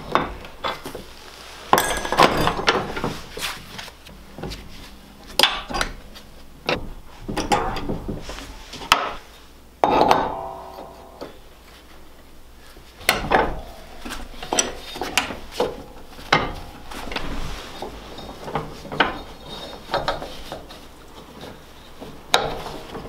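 Gloved hands working a wedged drive belt loose from the pulleys of a riding-mower deck: irregular metal clanks and clinks with rubbing and scraping in between. One clank about ten seconds in rings on briefly.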